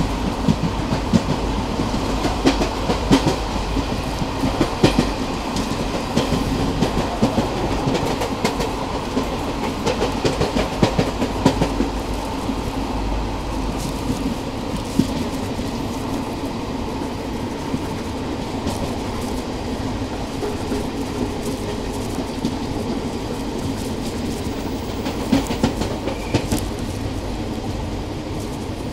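Passenger train running along the track, heard from a coach doorway: a steady rumble with the wheels clicking irregularly over the rail joints. The clicks come thickest in the first half and thin out later.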